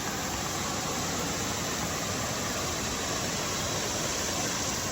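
Steady rushing of creek water running high after heavy rain.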